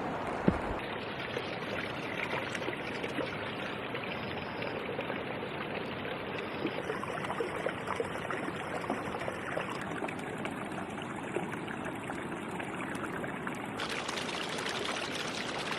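Steady running water, trickling and pouring, its tone shifting abruptly a few times.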